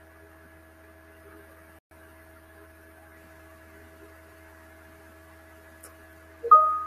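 Steady faint electrical hum, then near the end a short, loud notification chime of quickly rising notes from a desktop chat app, sounding as a new message reaction pops up.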